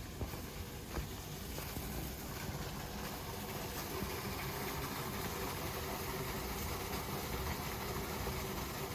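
A vehicle engine running steadily, slowly growing a little louder, with two light clicks in the first second.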